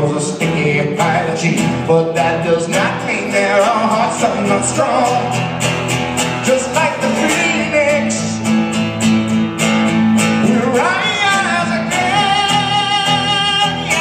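Acoustic guitar played with a man singing. The voice holds a long low note, then slides up to high wavering notes near the end.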